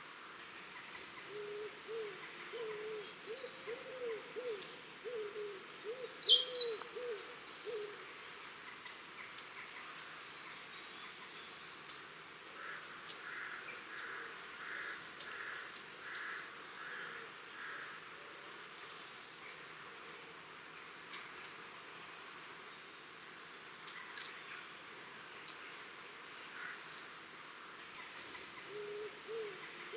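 A flock of long-tailed tits calling: many short, very thin, high-pitched calls scattered throughout. A lower, wavering series of repeated notes runs through the first eight seconds and returns at the very end, and a single louder call comes about six seconds in.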